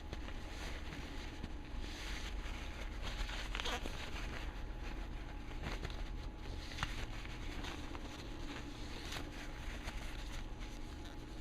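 Light, irregular scraping and rubbing as the hole in a ratchet head is cleaned out, over a steady low hum.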